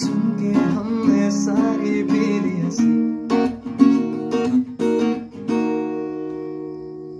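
Acoustic guitar being strummed in chords, then the song's final chord, struck about five and a half seconds in and left to ring and fade out.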